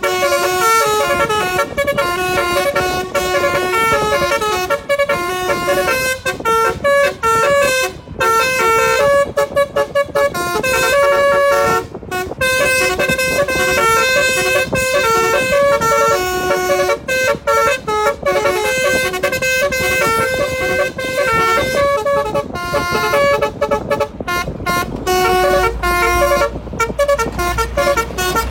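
Indonesian telolet multi-tone horn on a car playing a continuous melody: quick runs of short notes stepping up and down. A low rumble joins near the end.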